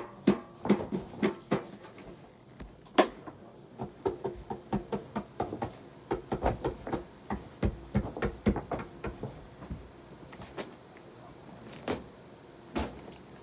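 Irregular series of short knocks and clicks, often several in quick succession, thinning to a few single knocks in the last few seconds.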